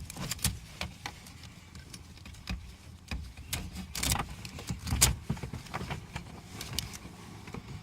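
Scattered sharp plastic clicks and ticks from handling a car's master window switch and its wiring harness, as the tape is worked off and the double-tabbed connectors are pried at to unplug them.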